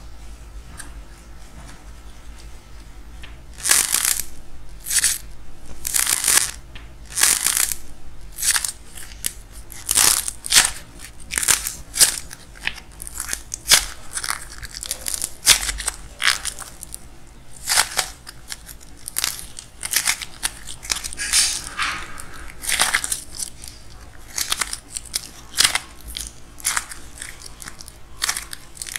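Dried clay crust of a clay tangerine cracking and crunching as fingers break it open and squeeze the soft white clay beneath. Sharp irregular crackles come about one or two a second, starting a few seconds in.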